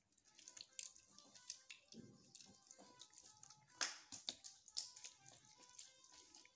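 Soft wet squelches and clicks of fingers crushing and scraping the pulp out of a preserved lemon, the loudest squish a little before the middle. Faint background music plays under it.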